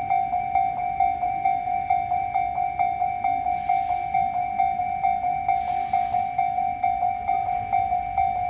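Japanese railway level-crossing warning bell ringing steadily: a repeated electronic clang, about three strokes a second. Two short hissing bursts break in, about three and a half and six seconds in.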